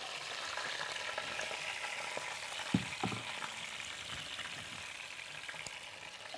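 Chicken pieces frying in hot oil in a pan: a steady sizzle, with two short knocks about three seconds in.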